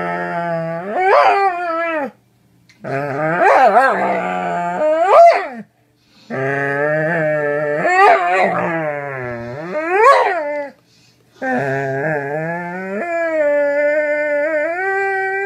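Doberman pinscher vocalizing in four long drawn-out calls separated by short breaks, each lasting a few seconds, its pitch wavering and sweeping up sharply near the end of several.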